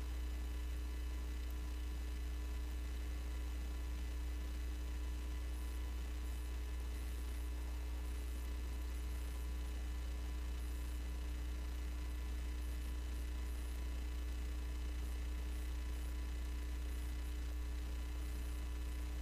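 Steady low electrical mains hum in the broadcast audio feed, with a few faint steady tones above it and nothing else.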